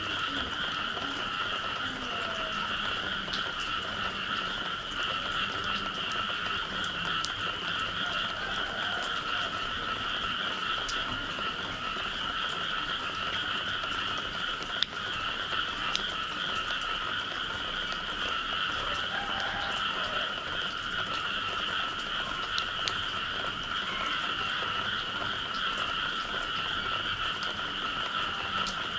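A dense chorus of frogs calling steadily after rain, with many overlapping voices. Scattered sharp ticks of dripping water run through it, one louder about halfway through.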